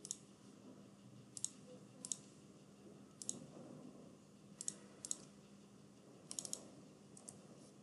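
Faint clicks of a computer mouse and keyboard, single and in quick clusters of two or three, spaced about a second apart, over a faint steady hum.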